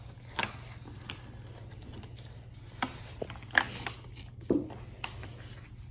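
Scattered taps, knocks and rubbing as a red rubber volcano mold filled with set plaster is gripped and worked on a plastic tray to free the cast, the loudest knock about three and a half seconds in.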